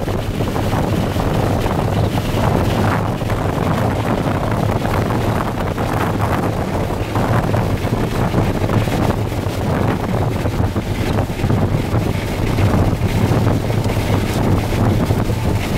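Tornado winds and driving rain battering a moving vehicle, heard from inside the cabin as a loud, steady rush that surges in gusts, with wind buffeting the microphone.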